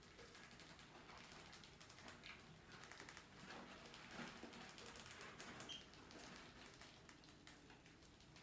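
Near silence with faint, scattered light clicks and scratches of small rodents scurrying over artificial turf and a wooden ramp.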